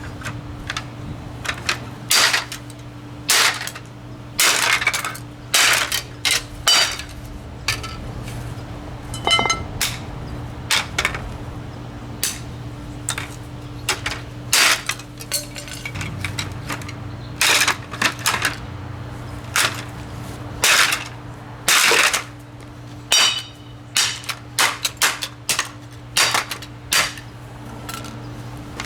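An Endless Breeze box fan being smashed: a long series of hard, irregular blows, some of them several in quick succession, each a sharp crack or clatter of breaking plastic and metal, a few leaving a short ringing tone. A steady low hum runs underneath.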